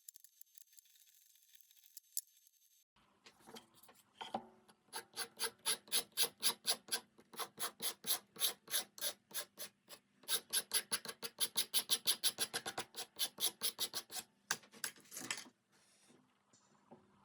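Wood being abraded by hand in rapid back-and-forth strokes, about four a second. The strokes start about three seconds in, pause briefly about seven seconds in, and stop shortly before the end.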